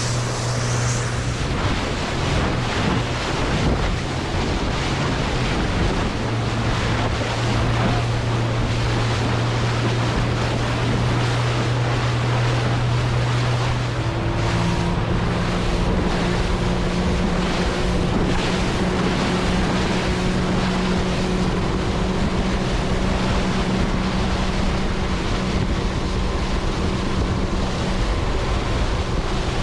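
Yamaha outboard motor driving a Quintrex 490 boat at speed, with the wake rushing and wind buffeting the microphone. About halfway through, the engine's note steps up in pitch as it picks up revs.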